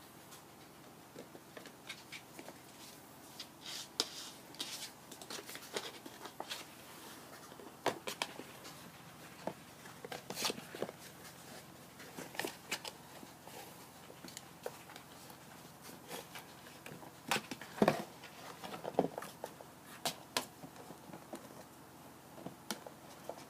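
Kittens playing: scattered light scratches, taps and rustles of paws and claws on surfaces, irregular throughout, with a louder knock about three quarters of the way through.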